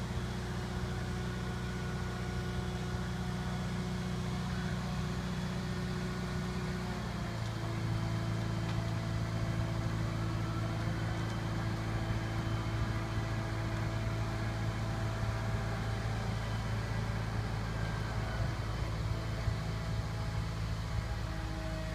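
Mobile crane's engine running steadily. About seven seconds in it settles to a slightly lower pitch and gets a little louder.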